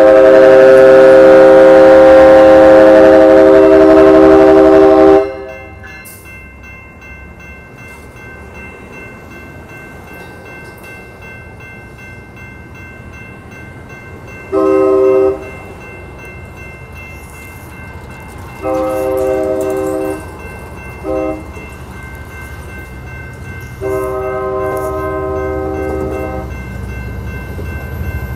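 Amtrak San Joaquins passenger train's multi-chime air horn sounds a loud sustained chord for about five seconds, then breaks off. After that the bilevel cars rumble past, and the horn sounds the grade-crossing signal from about 15 s in: long, long, short, long.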